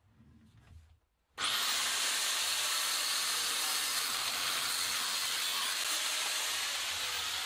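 Angle grinder starting abruptly about a second and a half in, its high whine rising, then a loud, steady hissing grind as the abrasive disc cuts through a steel tube stub on an old bicycle bottom bracket shell. Near the end the high whine drops in pitch.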